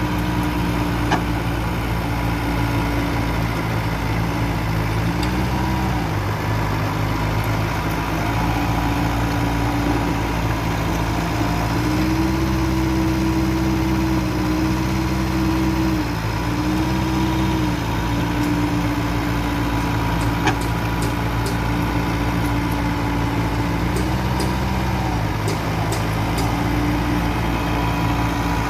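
Mitsubishi BD2e bulldozer's diesel engine running steadily while the machine levels soil. Its note dips briefly and recovers several times.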